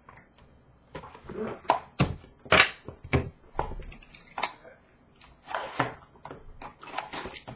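Handling of a cardboard trading-card hobby box on a glass counter: a string of irregular knocks, slides and rustles of cardboard.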